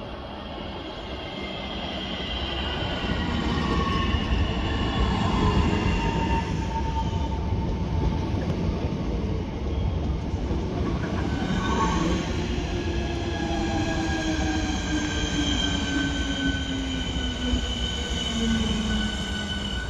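Southeastern Class 465 Networker electric multiple unit running into the platform, its wheels rumbling on the track. Its traction motors give a whine that falls in pitch as it slows, starting about three seconds in and again past the halfway point.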